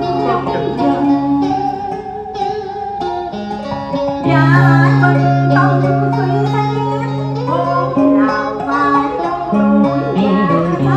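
Cải lương stage music played live: a plucked-string accompaniment over long held low notes, with a voice singing over it.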